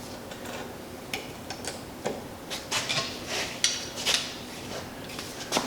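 Hand tools and steel parts clicking and clinking against each other at irregular intervals as a stiff spring is pressed down to seat a part in the assembly, with a sharper knock near the end.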